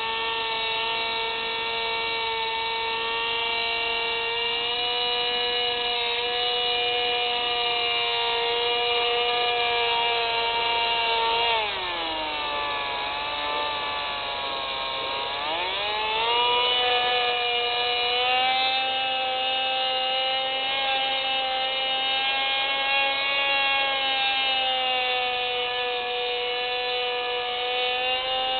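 FPV model aircraft's motor and propeller whining steadily, heard through the onboard camera. About halfway, the throttle is cut and the pitch falls sharply, then climbs back to cruise a few seconds later.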